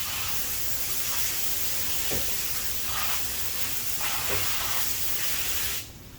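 Steady hiss from a spray nozzle blasting over a cylinder head, cutting off abruptly near the end.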